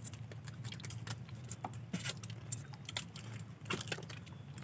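Scattered small sharp clicks and cracks of land-crab shells being cracked and handled while they are eaten, over a steady low hum.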